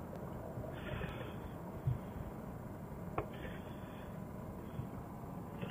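Faint scraping as a stick spreads thickened epoxy over the face of a wooden mounting block, in two short strokes, with a couple of light taps between them.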